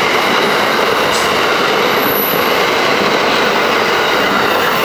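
Amtrak train of stainless-steel Amfleet passenger cars passing close by at speed: a loud, steady rush of wheels on rail.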